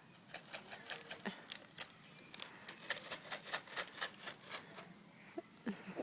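An irregular run of light, sharp clicks and taps, several a second, with a couple of short faint squeaks near the end.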